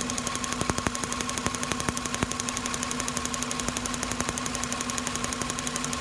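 Toyota engine idling with an inline spark tester on a plug wire, the tester's spark gap snapping in a rapid, even ticking, with a few louder snaps in the first two seconds; the spark on this cylinder is firing consistently. A steady hum runs underneath.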